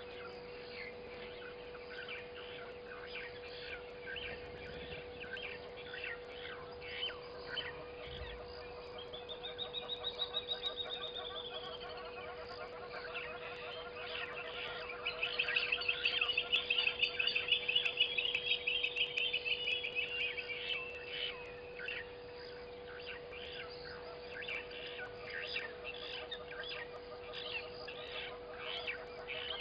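Two fast, whinnying trills, typical of a little grebe: a short one that rises and falls about ten seconds in, and a longer, louder one that lasts about six seconds in the middle. Short bird chirps are scattered throughout over a steady hum.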